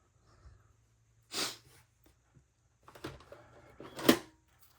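Handling noise as one pocket knife is put aside and the next is picked up: a short scraping rustle, then shuffling and a sharp knock about four seconds in.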